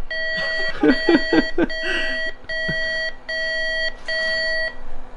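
Electronic beeper sounding a repeating series of beeps, about one a second, each just under a second long with short gaps, stopping shortly before the end. A brief voice is heard about a second in.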